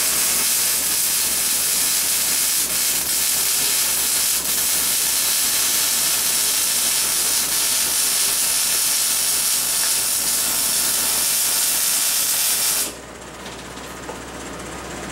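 Electric arc welding on steel: the arc hisses steadily for about thirteen seconds, then stops suddenly near the end, leaving only a low hum.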